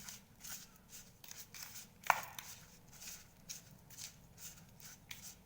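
Hands rubbing and mixing a crumbly mawa filling with a little ghee: soft rustling strokes about three a second, with one sharp click about two seconds in.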